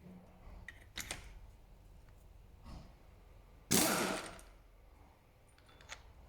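Mechanical clicks and clatter from handling a drill's chuck, with one louder, sudden noisy burst nearly four seconds in that dies away within about half a second.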